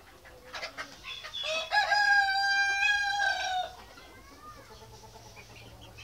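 White Australorp rooster crowing once: a long call that rises, holds steady for about two seconds, then drops away. A few short clucks come just before it.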